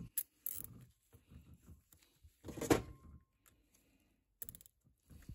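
Nylon zip tie being cinched around a rubber CV axle boot and trimmed with side cutters. Faint rustling of gloved hands and scattered small clicks, with a sharper click just past halfway and a quick cluster of clicks near the end.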